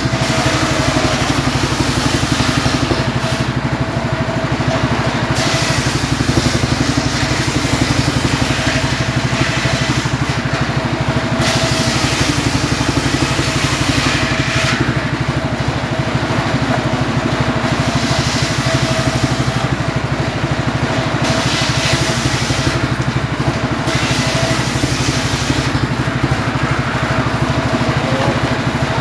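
Engine-driven homemade circular saw running steadily, its blade ripping logs lengthwise into firewood in several cuts of a few seconds each, with a hissing rasp that rises over the engine during each cut and drops away between them.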